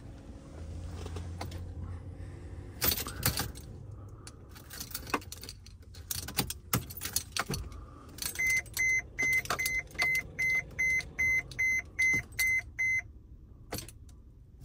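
Car keys jangling and clicking as they are handled, then a vehicle's electronic warning chime beeping quickly, about three short beeps a second, for around four and a half seconds before it stops.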